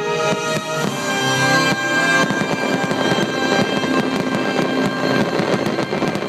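Fireworks show: sharp pops and a dense crackle of glittering shells, growing thicker about two seconds in, over the show's music.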